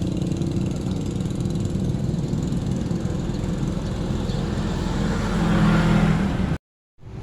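Steady engine rumble of passing motor traffic, with one engine growing louder about five seconds in. The sound cuts out abruptly for a moment near the end.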